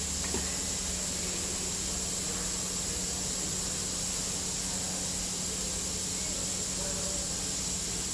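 Steady hiss with a low hum underneath and a faint click about a third of a second in.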